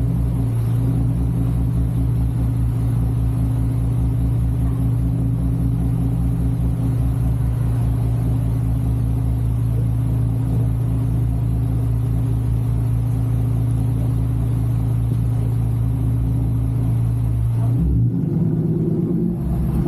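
Lexus IS 250's 2.5-litre V6 engine and road rumble under steady driving, a low even drone. Near the end the engine note bends and shifts for a moment.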